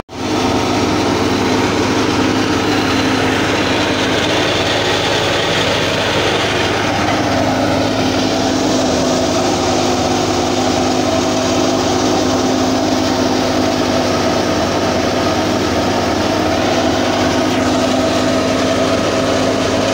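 Tractor-driven wheat thresher running steadily: the tractor engine and the thresher's drum make a continuous machine drone with a constant hum.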